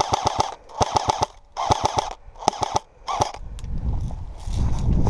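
Airsoft gun firing in short rapid bursts, five bursts of quick cracks about a second apart that stop a little over three seconds in. After that, a low rumbling noise rises.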